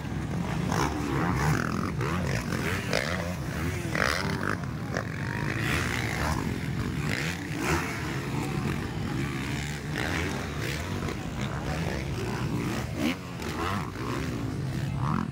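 Several motocross dirt bikes racing on a dirt track, their engines revving up and down as the riders climb and jump.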